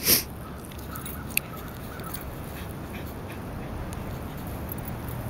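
Faint dog sounds over low outdoor background noise, with a brief sharp noise right at the start and a single click about a second and a half in.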